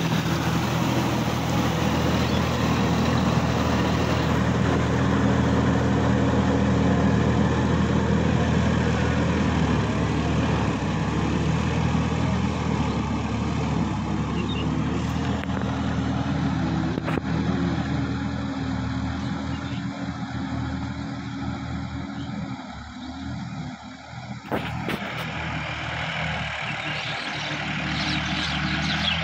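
Sonalika DI-50 RX tractor's diesel engine running steadily under load while pulling a rotary tiller through flooded paddy mud. It is somewhat softer in the latter half, with a brief dip about 24 seconds in.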